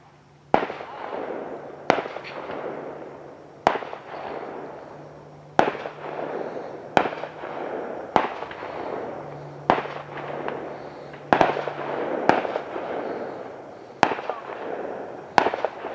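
Fireworks going off: a string of sharp bangs about every one and a half seconds, each followed by a crackling tail that fades.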